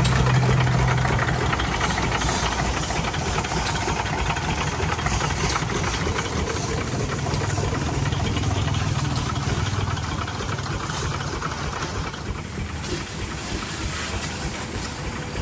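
12 hp single-cylinder stationary diesel engine with twin flywheels running steadily with an even knocking beat, driving a belt-driven water pump.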